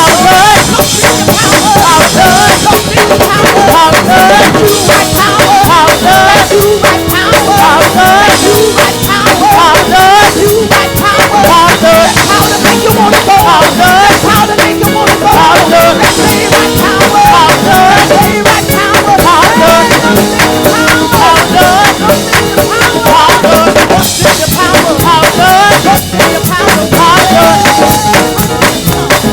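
Live gospel praise band playing loudly, with a busy drum kit driving the groove under singing and keyboard or organ lines.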